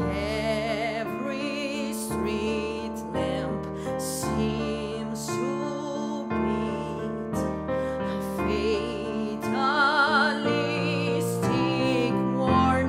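Woman singing a slow show ballad with wide vibrato over a piano accompaniment, swelling to a loud high note about ten seconds in.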